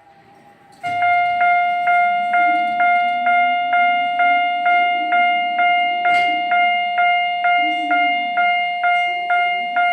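Japanese level crossing warning bell on a model crossing, sounding its 'kan-kan' alarm. It starts about a second in and strikes evenly, about twice a second, each ringing tone fading before the next.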